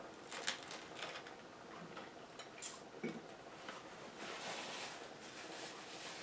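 Faint small clicks, crackles and rustles of someone eating at a table: crusty brown bread being bitten, handled and set down on a plate.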